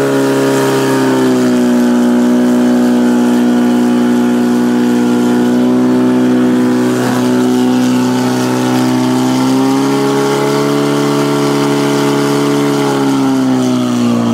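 Portable fire pump engine held at full throttle, pumping water through the attack hoses. A loud, steady high-pitched drone with small rises and dips in pitch, easing down slightly near the end.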